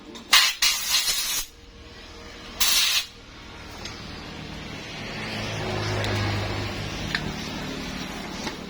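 Two short hissing bursts of pressurised spray, the first about a second long and the second shorter, during engine assembly work. In the second half a low rumble swells and fades.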